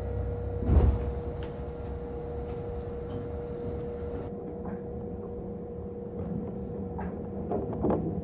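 Inside the leading car of a Kintetsu electric train leaving a station: a heavy thud about a second in, like the doors closing, then a steady electric hum as the train starts to move. Near the end come a few sharp clicks of the wheels over rail joints.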